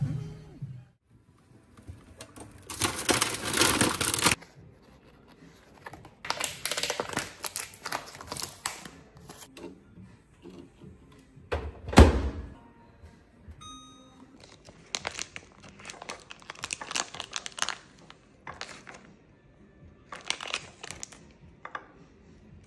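Plastic food wrapping crinkling and tearing in several bursts. About halfway through a microwave door shuts with a single loud thunk, followed by a few short keypad beeps.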